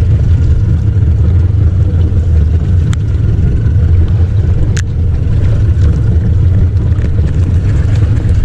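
Boat engine running steadily with a deep, even rumble, and two sharp clicks, about three and five seconds in.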